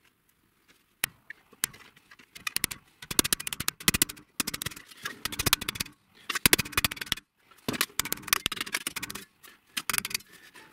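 Hammer tapping on thin galvanized sheet steel clamped in a bench vise, bending over a mounting flange. The taps come in several quick runs with short pauses between them.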